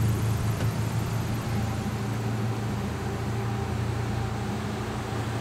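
Car engines idling steadily, a low hum.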